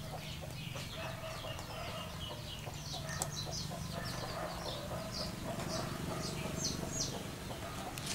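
Chickens clucking, with many short high chirps, over a steady low hum.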